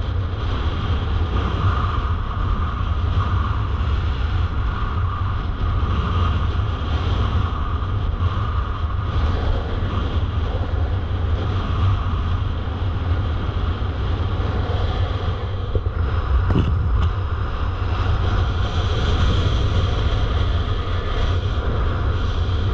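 Wind buffeting an action camera's microphone as a paraglider soars: a steady, deep rumble of airflow with a hiss above it. Two faint clicks about two-thirds of the way in.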